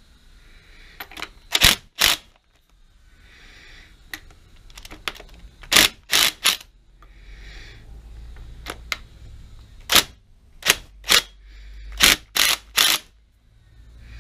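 Cordless drill with a socket on the lathe handwheel's retaining nut, run in short spurts to break the nut loose. Sharp metallic clicks come mostly in groups of two or three, with a brief whirr twice.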